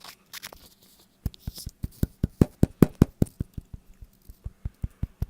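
Fingertips tapping quickly and evenly on the wet, juicy flesh of a bitten Golden Delicious apple, about five light knocks a second, starting about a second in.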